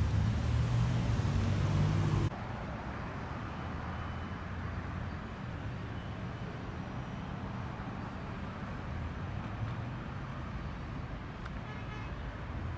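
Steady hum of road traffic. A louder low rumble in the first two seconds cuts off abruptly.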